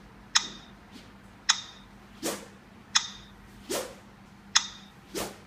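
Badminton racket smashes: three swishes of the racket through the air, and five sharp clicks with a short ringing tone, about one every second and a half, each swish followed a little later by a click.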